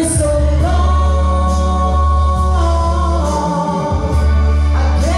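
Karaoke singing: a woman sings long held notes into a microphone over a backing track with a steady bass line, heard through the bar's PA.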